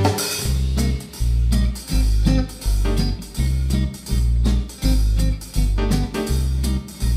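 Background music with a deep bass note pulsing at a steady beat, about three every two seconds, under quick sharp percussive clicks.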